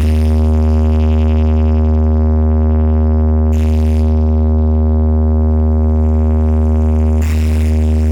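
Sound-check track on a DJ sound system: one sustained synthesized tone with a very heavy, steady bass underneath, held without a break. Short hissing sweeps cut in about three and a half seconds in and again near seven seconds.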